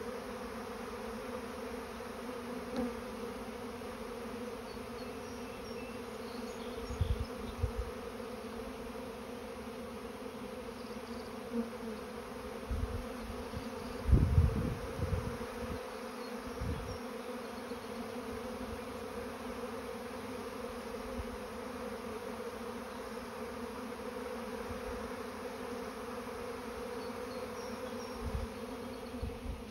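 Honeybee swarm in flight: the steady hum of many bees' wings all around, the sound of a colony that has left its hive to swarm. A few brief low rumbles break in, the loudest about halfway through.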